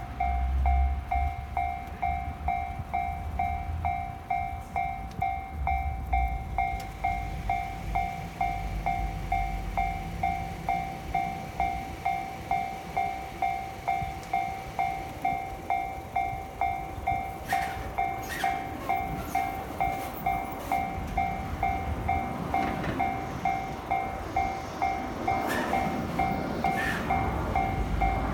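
Japanese level-crossing warning bell ringing on and on in an even two-tone pulse, about one and a half strokes a second: the crossing is closed for an approaching train. In the last third a train runs through the crossing, with wheel clicks and rising rumble under the bell.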